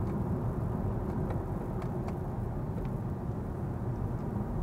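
Steady road and tyre noise heard inside the cabin of a Kia EV6 electric car driving along at a steady speed, with a few faint light ticks.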